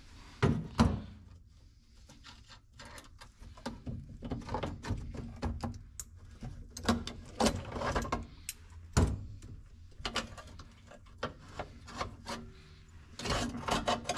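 Hand tools clinking, knocking and scraping against the metal dashboard of a Datsun 521 pickup as the choke cable is worked loose with locking pliers: irregular clicks and rubbing, with sharp knocks about half a second and a second in and again about nine seconds in.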